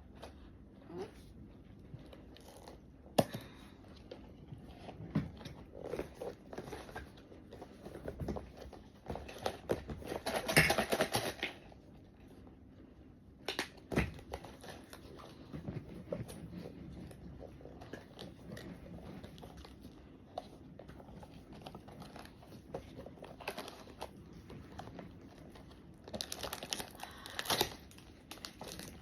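Packaging being handled and torn open: crinkling and tearing of wrapping with scattered clicks and knocks, louder bursts of crinkling about ten seconds in and again near the end.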